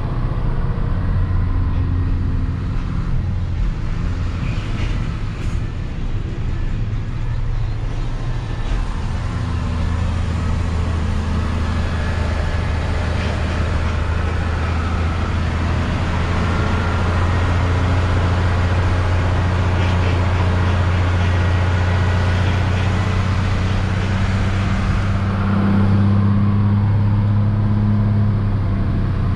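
Hino 500 truck's diesel engine running steadily while driving, heard from inside the cab along with tyre and road noise. The engine note drops about nine seconds in and rises again near the end.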